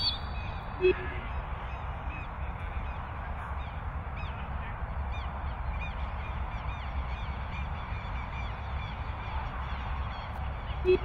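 Birds calling outdoors: many small chirps repeating through the whole stretch, with two short, louder honk-like calls, one about a second in and one near the end, over a steady low rumble.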